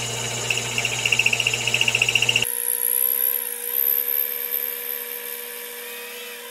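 Mini-lathe running while its cutting tool turns a grade 5 titanium rod at a 0.5 mm depth of cut. A steady motor hum carries a fast-pulsing tone for the first two and a half seconds, then the sound changes abruptly to a thinner, steadier whine without the low hum.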